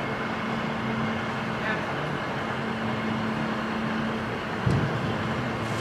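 Dump truck engine running steadily with its bed raised after tipping a load of gravel; its hum drops away about four seconds in, followed by a single thump.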